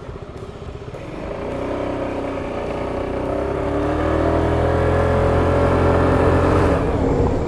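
Peugeot XP400 GT scooter's 400cc liquid-cooled engine accelerating, its pitch rising steadily and getting louder for about five seconds, then easing off near the end.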